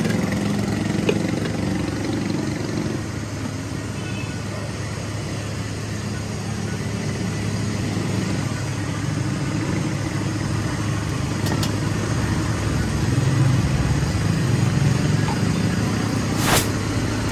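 Street traffic, mostly motorcycle and car engines running steadily, with a short sharp knock about a second before the end.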